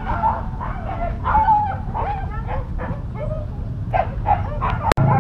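Dogs yipping and barking, many short calls in quick succession, over a low steady rumble. A sharp click about five seconds in.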